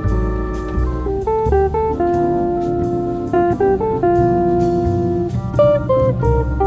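Background music: jazzy plucked guitar melody over a bass line with a light steady beat.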